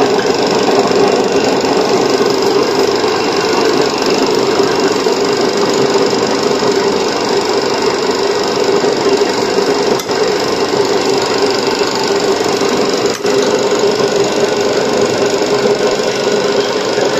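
Homemade electric meat mincer running steadily while grinding beef: an electric motor turns the mincer head through a belt and pulley, giving a loud, constant hum.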